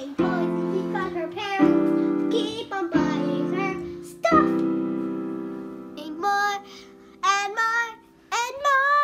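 Sung theme jingle: a voice singing a tune over keyboard chords struck about every second and a half. It ends in a long sung note that swoops up and down.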